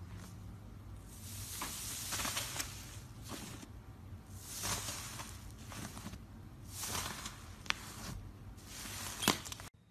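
Fluffy white slime being pressed and pulled apart by hand, giving soft crackling, hissing swells about every second, with two sharp little pops in the last two seconds.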